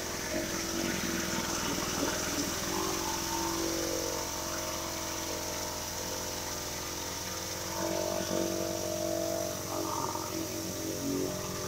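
Pressure washer running steadily on low pressure, its motor and pump making a pitched drone that swells and fades. Over it, a DeWalt rotary surface cleaner sprays water onto wet wooden deck boards with a constant hiss.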